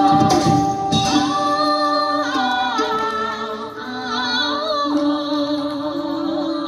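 Vietnamese folk music with a singing voice holding long, wavering notes that slide between pitches, over instrumental accompaniment, with a few percussion strokes in the first second.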